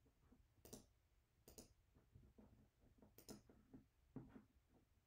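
Near silence with three or four faint, sharp computer mouse clicks, the last two close together about three seconds in.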